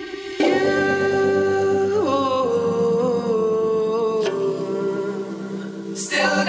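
Background music: a song with a held, gliding vocal line over sustained chords, swelling up and coming in fully about half a second in.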